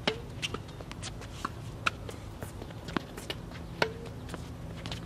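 Tennis rally: a racket strikes the ball with a sharp pop on the serve at the very start, then comes a scatter of lighter knocks from ball bounces and the distant return. A loud forehand racket strike comes about four seconds in.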